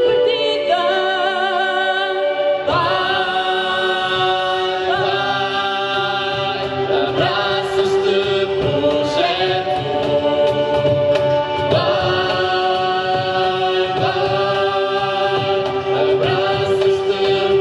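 A live band performing a Portuguese-language song: a woman and a man singing lead with backing voices, accompanied by violin, acoustic guitars and cajón. The fuller accompaniment comes in about three seconds in.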